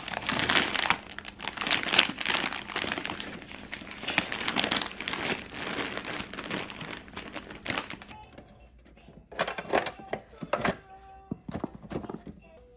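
Crinkling and rustling of packaged baby supplies, such as diapers and wet wipes, being handled and packed into a canvas basket. About eight seconds in this gives way to a few sharp plastic clacks from a child's shape-sorter toy.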